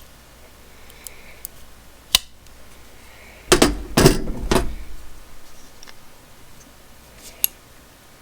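A metal multi-tool being handled and its parts worked: a sharp click about two seconds in, a cluster of clunks and rattles about halfway through, and another click near the end.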